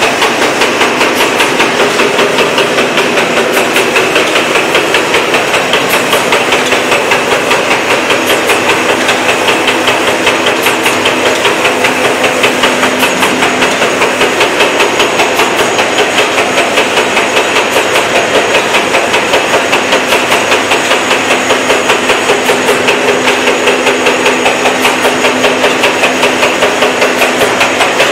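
Fully automatic wet wipes production and packaging line running at speed: a loud, fast and very even mechanical clatter of repeated knocks over a steady hiss.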